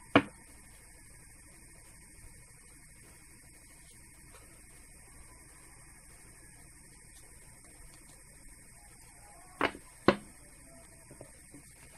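Steady electrical hum under the soft handling of a tarot deck being shuffled by hand, with small card clicks. Near the end come two sharp taps of the cards about half a second apart.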